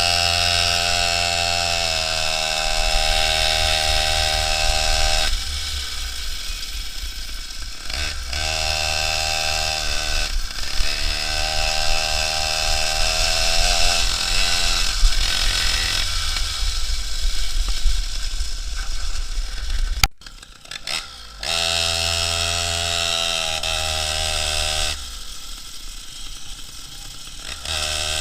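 Two-stroke chainsaw engine of a homemade moped running, its note holding steady for a few seconds at a time and then shifting up and down between those stretches. The sound drops out sharply for about a second some twenty seconds in.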